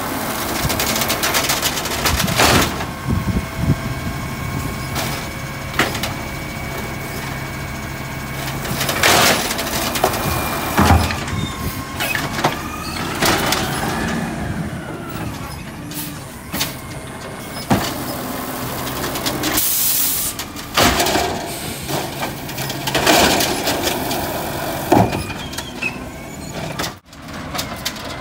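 Natural-gas automated side-loader garbage truck working its hydraulic arm over the running engine, with repeated clunks and bangs as the arm grips, lifts, dumps and sets down a wheeled trash cart. A short hiss of air comes about two-thirds of the way through.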